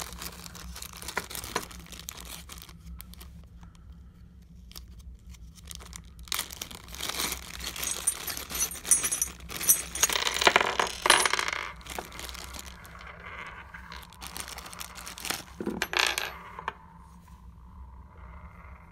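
A plastic bag of small steel hardware being handled and emptied: plastic crinkling, and screws, nuts and washers clinking and dropping onto a wooden tabletop, with a busy run of clinks around the middle.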